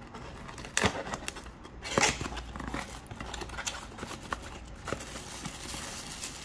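A product box being opened and its packaging handled: a run of clicks, knocks and crinkling, with the loudest knocks about one and two seconds in.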